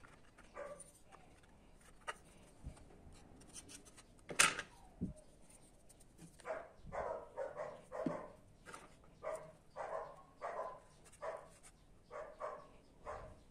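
A dog barking, a few scattered barks at first and then a steady run of about two to three barks a second from about halfway through. A single sharp knock sounds about four seconds in.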